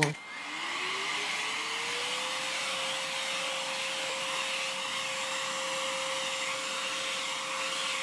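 Redmond RV-UR356 cordless stick vacuum motor spinning up, its whine rising in pitch over the first two seconds and then running steady over the rush of air. The brush nozzle is working over a plush toy's fur.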